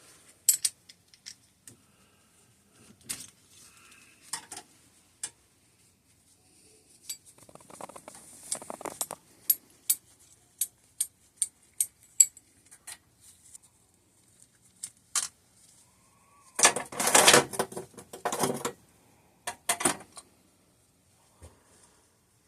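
Small metal tools and brake parts clinking and tapping as they are handled on a workbench, with a longer burst of metallic rattling near the end.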